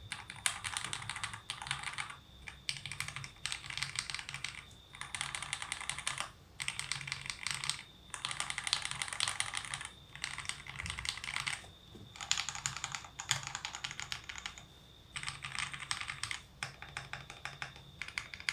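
Typing test on a mechanical keyboard with lubed KTT Panda linear switches: fast runs of keystroke clacks lasting one to two seconds each, with short pauses between them.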